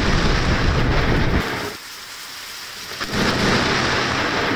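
Thunderstorm: thunder rumbling over heavy rain. The rumble drops away about a second and a half in, and a loud rain hiss returns after about three seconds.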